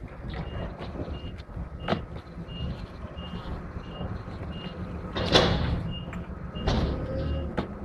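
A vehicle's reversing alarm beeping steadily, about three beeps every two seconds, over a low engine rumble. A few knocks and scrapes of cardboard mango boxes being handled break in, the loudest about five seconds in.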